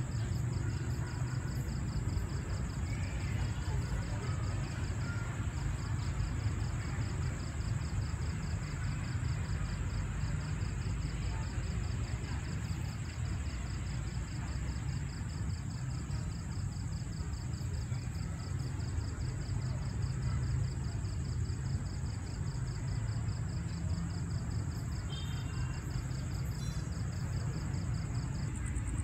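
Night insects trilling steadily: a rapid, evenly pulsed high trill and a continuous higher buzz, over a steady low rumble.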